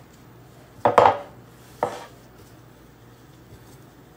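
Two knocks against a glass mixing bowl, about a second in and again just under a second later, the first the louder, as a gloved hand kneads mashed potato in it.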